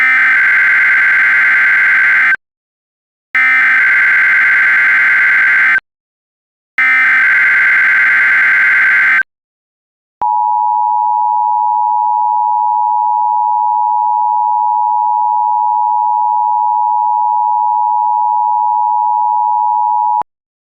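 Emergency Alert System opening: three loud, buzzy bursts of SAME header data, each about two and a half seconds long with short gaps between them, followed by a steady ten-second attention tone that cuts off abruptly.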